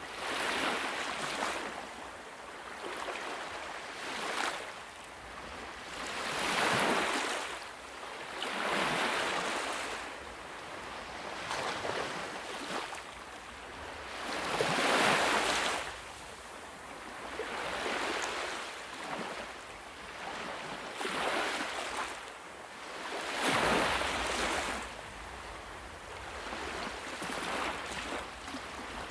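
Ocean waves breaking and washing onto a beach, the surf swelling and fading every two to three seconds, with the largest waves about halfway through and again near the end.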